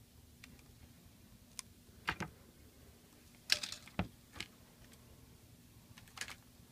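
Scattered small clicks and taps from iPad 2 parts being handled during reassembly: a pair about two seconds in, a quick cluster near the middle, and a pair near the end, over a faint steady hum.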